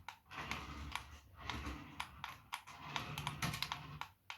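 Small toy RC rally car driving in short spurts, its little electric motor and plastic gears whirring with rapid clicking and rattling.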